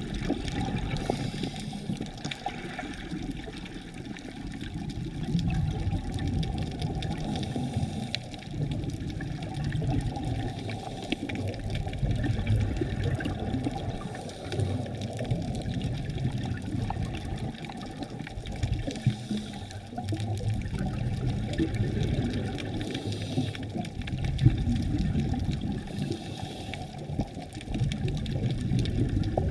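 Scuba regulator breathing heard underwater: exhaled bubbles rumbling and gurgling in surges every few seconds, muffled as if through a camera's waterproof housing. There is one sharp knock near the end.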